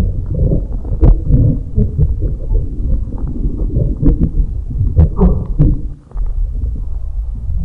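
Human stomach rumbling and gurgling, low and continuous, with many short sharp pops and squelches and a brief lull about six seconds in.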